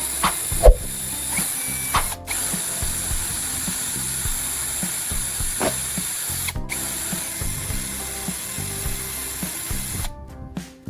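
A steady, high-pitched mechanical hiss from a tool being worked, broken off briefly twice, with a few sharp clicks.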